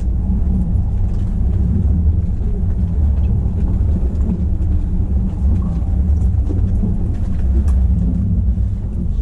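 Kintetsu 80000 series Hinotori limited express train running slowly through an underground station, heard from inside the front car: a steady low rumble with faint scattered clicks.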